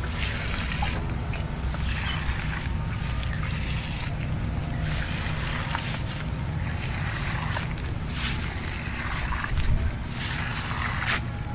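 Liquid fertilizer solution pouring from a hose nozzle and splashing onto the plastic mulch at the base of chili plants, over a steady low rumble.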